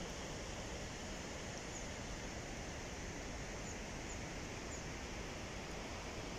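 Steady rushing of a distant river, an even wash of sound that doesn't change. A few short, faint, high bird chirps come in the middle.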